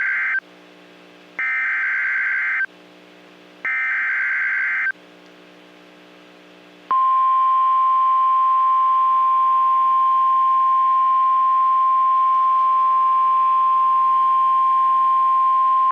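NOAA Weather Radio alert signal: three short buzzy bursts of EAS/SAME digital header data about a second apart, then the steady 1050 Hz warning alarm tone starting about seven seconds in and held for about nine seconds. The sequence marks the start of a new broadcast warning, here a severe thunderstorm warning.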